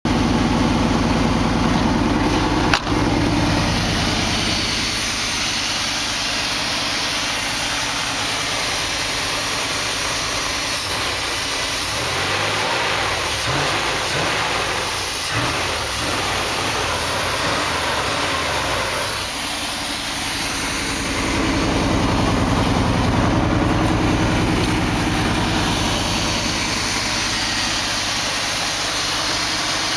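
A 1989 Chevy 1500 pickup's 350 V8 running at idle, steady, with one sharp click about three seconds in.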